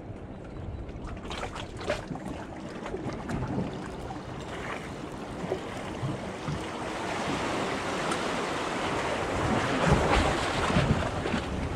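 Sea water washing and splashing against the rocks of a jetty, with wind buffeting the microphone; the splashing grows louder toward the end.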